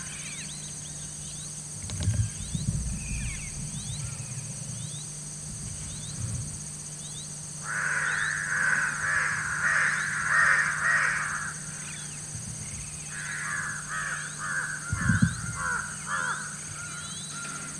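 Crows cawing in two long runs of harsh calls, the first starting about halfway through and the second near the end, with faint short bird chirps, a steady low hum and a couple of low thumps.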